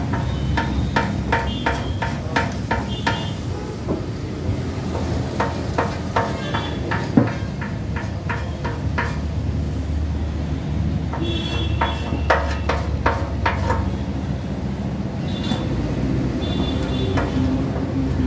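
Sharp, irregular metallic taps of a hand tool on a motorcycle's metal fuel tank, in runs of several a second with short pauses, some taps ringing briefly: old paint being chipped off the tank. A steady low rumble sits underneath.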